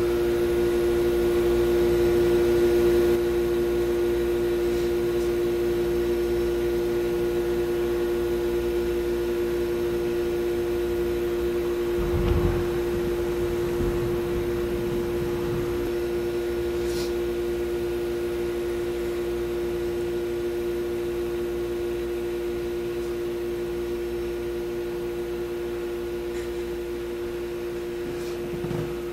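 Steady droning tone held on one low pitch with overtones, a sustained soundtrack drone that slowly fades. A soft low thud comes about twelve seconds in.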